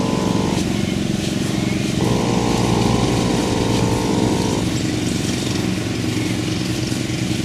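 Shire foal snoring in its sleep, a steady rasping drone. It alternates every two to three seconds between a higher, fuller part and a lower rumble, the in and out breaths of the snore.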